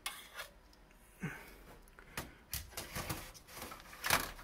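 Scattered clicks and light knocks of a Dell hot-plug 3.5-inch hard-drive caddy, with a drive in it, being handled; the loudest knock comes near the end.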